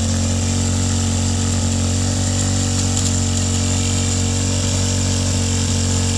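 Honda 160 single-cylinder four-stroke engine running steadily at full throttle, held at a constant high speed, being run hard on purpose to try to blow it up.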